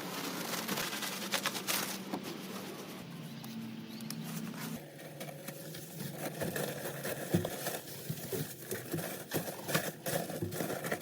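Chicken manure being spread over garden soil: irregular rustling and pattering with scattered light scrapes and knocks.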